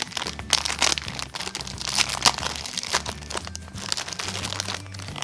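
Plastic toy packaging crinkling irregularly as it is handled, over a faint low hum.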